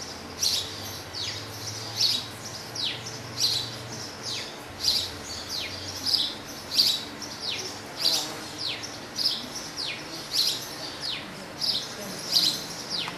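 A small bird chirping over and over: short, high chirps that slide downward in pitch, about two a second.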